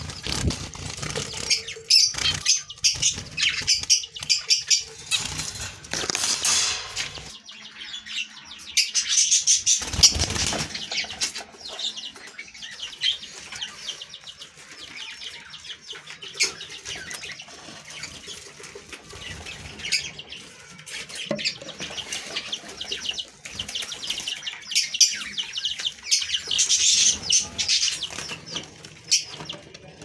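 Caged small pet birds, zebra finches and lovebirds, chirping and chattering continuously in high, rapid calls, with loud flurries of wing flapping about six and ten seconds in.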